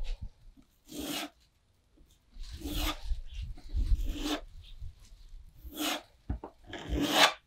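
A hand tool rubbing against the ceiling around the old trim holes in about five separate rasping strokes, each half a second to a second long, with a couple of short light knocks near the end.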